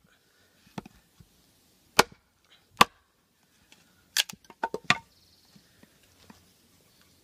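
Large knife chopping into a wooden block: sharp single knocks about one, two and three seconds in, then a quick run of about five knocks between four and five seconds in.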